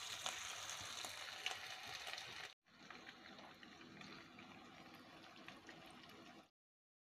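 Meat cutlet patties sizzling and crackling as they fry in hot oil in a frying pan. The sizzle breaks off briefly about two and a half seconds in, comes back quieter, and cuts off about half a second before the end.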